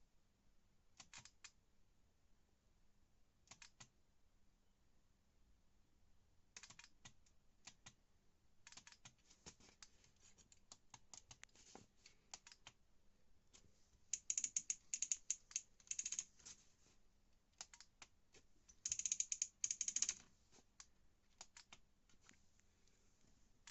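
An LG washing machine's control module clicking faintly, a symptom of the machine failing to turn on. Scattered single clicks give way to two louder bursts of rapid chattering clicks, one about 14 seconds in lasting some two seconds and another about 19 seconds in.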